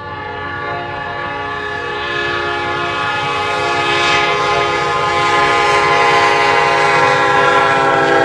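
Metra commuter locomotive's air horn sounding one long continuous chord, growing louder as the train approaches a car at the crossing.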